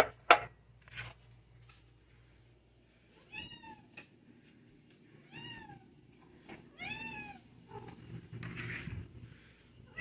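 A domestic cat meowing three times, each a short call that rises and then falls in pitch. A sharp knock sounds a fraction of a second in.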